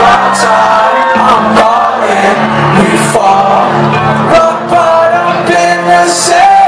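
Live concert music played loud through the PA, with a beat and a sung or rapped vocal line, heard from inside the crowd with some crowd shouting mixed in.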